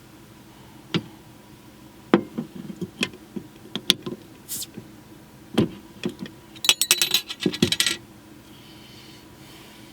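Small hard objects being handled and set down: a series of sharp knocks and clinks, then a metallic jingling rattle lasting about a second, near seven seconds in.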